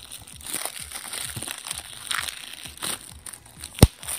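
Plastic shrink-wrap on a Blu-ray case crinkling and crackling as it is pierced and torn open with a pen, with one sharp knock near the end.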